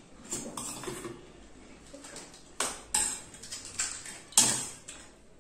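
A metal spoon clinking and scraping in a steel bowl and against dishes while pani puris are filled and dipped, with a few sharp clinks, the loudest about four seconds in.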